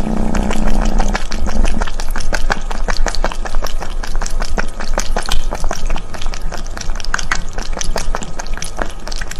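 A cat lapping water from a glass, close-miked: a quick, irregular run of wet licks and clicks from its tongue.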